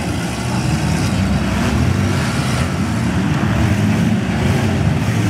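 Many minivan engines running and revving at once in a demolition derby, a loud steady din with engine notes rising and falling.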